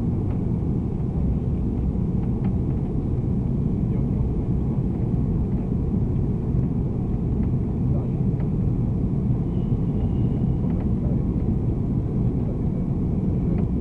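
Steady low rumble of an Airbus A340's cabin in flight shortly after takeoff: engine noise and airflow heard from inside, unchanging throughout.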